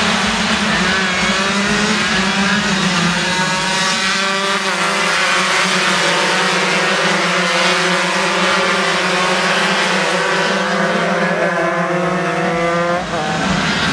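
Several 125 cc underbone racing motorcycles running hard together, engines revving high. The pitch climbs and dips as they accelerate and shift through the gears.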